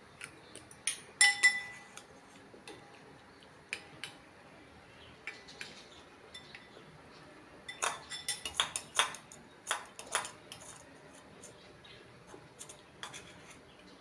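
Metal spoons and forks clinking and scraping against bowls as people eat. The loudest clinks ring briefly about a second in, and a quick run of clinks comes from about eight to ten seconds.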